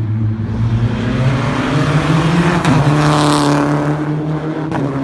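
Rally car engine under hard throttle passing close by: its note climbs over the first two seconds, then holds, and is loudest as the car goes past about three seconds in.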